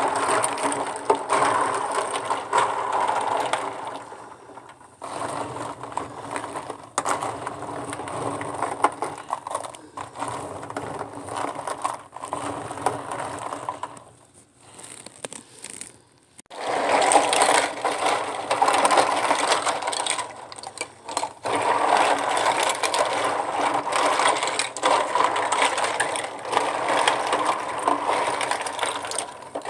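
Plastic lip gloss tubes and caps clattering and clicking against each other and the tub as a gloved hand swishes them through soapy water, with water sloshing. It goes quiet for a couple of seconds about halfway through, then the rattling starts again louder.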